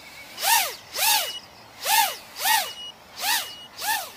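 Racing quadcopter's electric motors and propellers whining up and down six times in quick succession, each surge rising and falling in pitch over about half a second, as the throttle is punched repeatedly while the quad skims low over the road.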